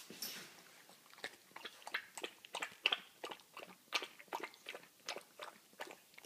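Puppy eating dry kibble from a bowl: a run of short, sharp crunches, roughly three or four a second, starting about a second in.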